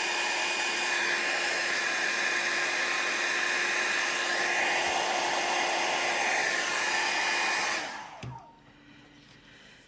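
Revlon 500-watt styling-brush hair dryer blowing steadily with a whine, then switched off about eight seconds in and spinning down with a falling pitch. A light knock follows just after.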